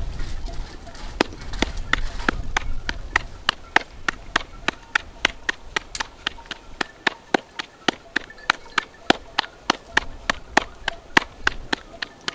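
Knife chopping on a cutting board in a steady rhythm of about three to four strokes a second, starting about a second in.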